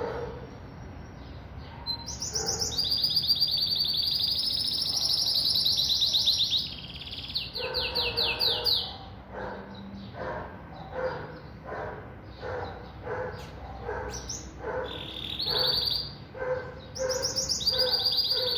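Pintagol, a siskin × Belgian canary hybrid, singing long, fast trilled phrases, one long run in the first half and shorter ones near the end. From the middle on, a lower call repeats about twice a second.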